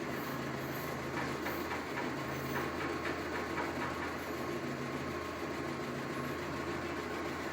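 Car engine idling steadily, with no revving.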